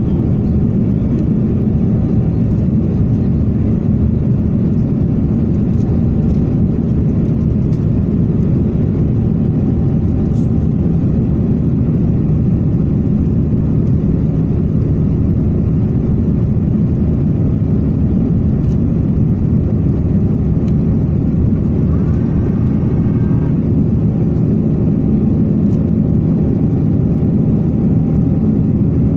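Steady low cabin drone of an Airbus A330-900neo climbing out after take-off: the wing-mounted Rolls-Royce Trent 7000 turbofan at climb thrust together with airflow noise, heavy in the low end and unchanging throughout.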